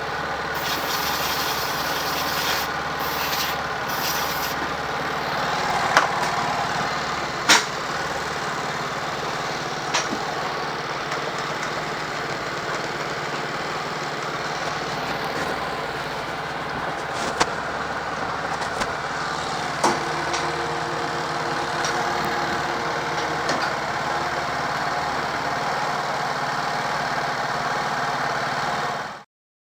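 Motor scooter engine running steadily at idle, with a few sharp clicks; it cuts off suddenly near the end.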